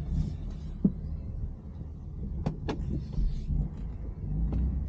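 BMW M4's twin-turbo straight-six idling with a low, steady rumble through freshly fitted catless downpipes, with a few sharp clicks over it.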